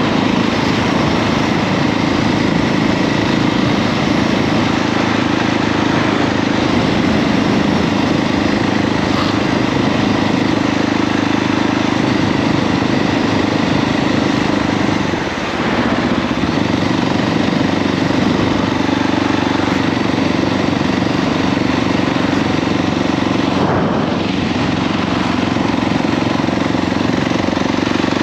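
KTM 690 SMC R's A2-restricted single-cylinder engine running steadily while riding, with a short throttle lift or gear change about halfway through before the engine pulls on at a slightly different pitch.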